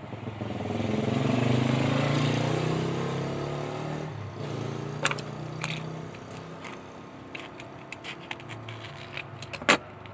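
A passing vehicle engine swells and fades over the first few seconds. Then come a series of small clicks and taps, with one sharp click near the end, from packaging being handled.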